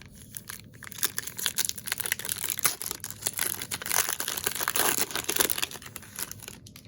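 Crinkly wrapper of a baseball card pack being torn open and crumpled by hand: a dense run of crackling and rustling that dies down about six seconds in.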